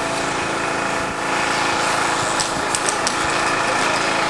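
A small engine running steadily in the background, a continuous drone with no change in pitch.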